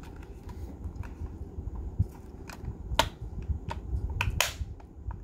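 Plastic shell of an Athearn P42 model locomotive being worked onto its chassis by hand: handling rustle with several sharp plastic clicks, the loudest about three and four and a half seconds in, as the shell is pushed over its clips.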